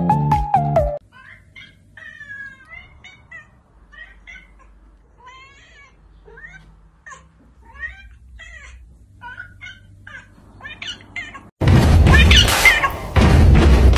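A cat making a long string of short chirps and meows in quick succession. Music plays for about the first second, and loud music cuts in suddenly near the end.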